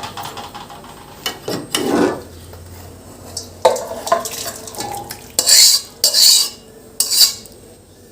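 Metal spoon scraping and clinking against a cooking pot in a series of separate strokes, with two longer, louder scrapes a little past the middle, as the cooked curry is stirred and taken out of the pot.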